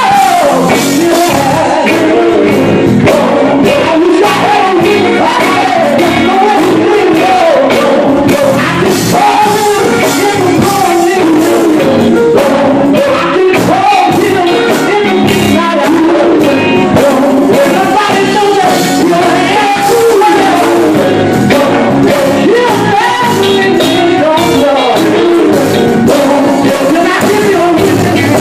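Male gospel vocal group singing live into microphones with band accompaniment and a steady percussive beat.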